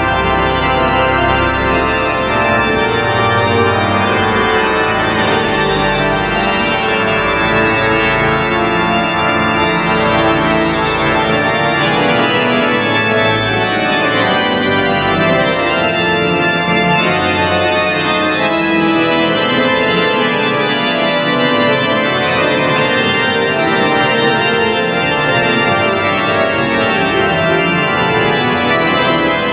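Organ music played live on a two-manual organ: sustained, many-voiced polyphonic playing with held chords, and deep pedal bass notes through the first third that drop away about ten seconds in.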